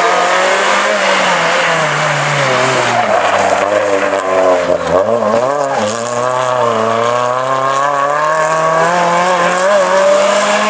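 Rally car engine working hard on a gravel stage, revving and changing pitch with the throttle. About halfway through the pitch drops and wavers as the car slows and turns, then it climbs steadily as the car accelerates away.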